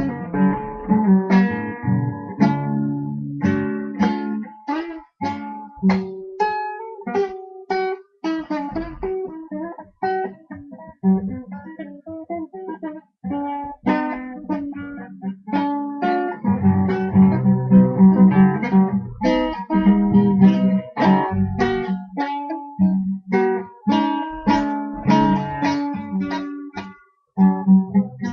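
Guitar played with the fingers, no pick: plucked notes and chords, sparser and quieter in the middle, then fuller, louder strumming for the last part.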